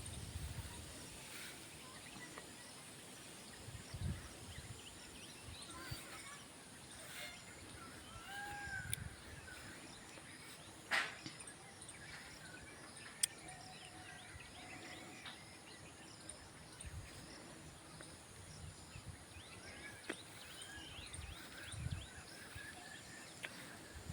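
Faint rural outdoor ambience with scattered distant bird chirps and short calls over a steady hiss, and a few low bumps.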